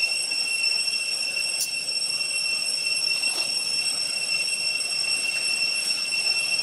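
Cicadas droning in the trees: one loud, steady, high-pitched whine held without a break, over a faint hiss.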